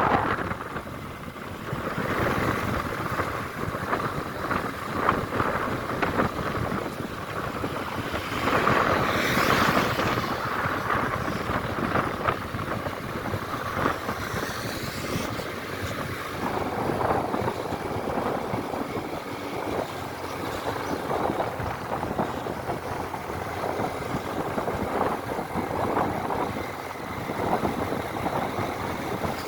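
Vehicle noise heard from a moving motorcycle: its engine running along with the rumble of surrounding trucks and cars. The noise swells to a louder, hissier stretch about nine seconds in.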